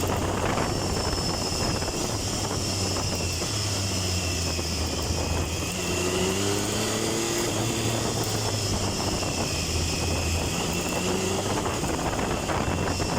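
Triumph Tiger 1050's three-cylinder engine running under way at fairly steady revs, its pitch shifting slightly, mixed with wind noise.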